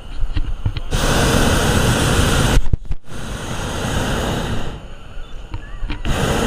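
Hot air balloon's propane burner firing overhead in blasts that start and stop abruptly: one from about a second in, a second after a brief break, and a third starting near the end.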